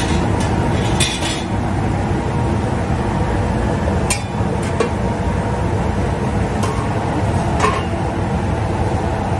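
Metal pots and pans clink a few times as a pan of stew is stirred and pot lids are handled on a gas range. Under them runs a steady, loud low rumble.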